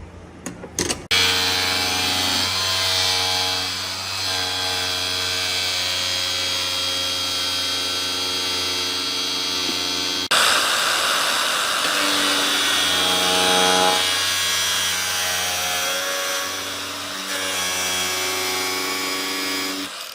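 An electric motor-driven tool or machine running with a steady whine. The pitch dips and shifts now and then as it takes load. It starts about a second in, and the sound changes abruptly about halfway through.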